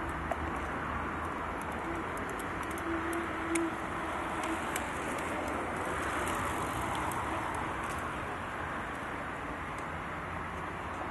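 Steady rushing noise of wind on the microphone and mountain-bike tyres rolling on an asphalt path, with light scattered ticks.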